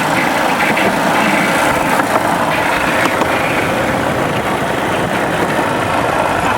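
Moto rail running along disused railway track: the trolley is driven by a 125 cc motorbike, and the engine runs steadily.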